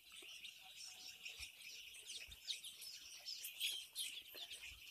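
A large flock of seven-day-old chicks peeping, a dense, faint chorus of many short high chirps overlapping without pause.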